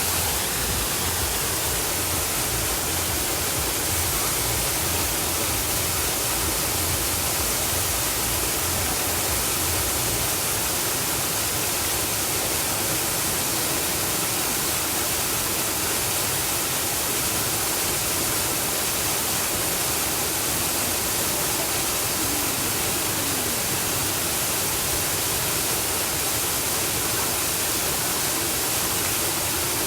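Waterfall: falling water rushing in a loud, steady, even hiss that does not change.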